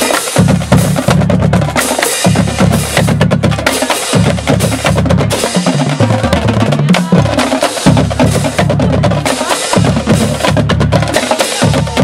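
Marching band drumline playing a dense cadence: rapid snare drum strokes and rolls over tuned marching bass drums whose notes step up and down in pitch.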